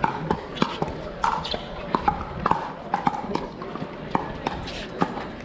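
Pickleball rally: paddles striking the hollow plastic ball in a run of sharp pops, irregular, about two a second.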